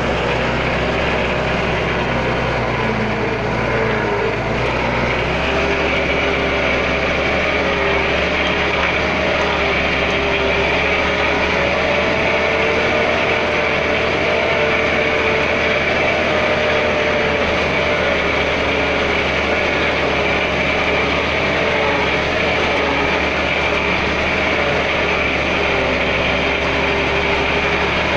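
Truck engine running steadily, heard from inside the cab along with road noise. The engine note shifts about five seconds in.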